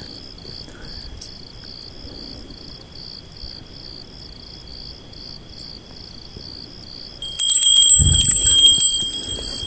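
Crickets chirping in a steady pulse, a little over two chirps a second, over a second steady high insect tone. About seven and a half seconds in, a much louder high metallic ringing with clicks and low rustling starts over them.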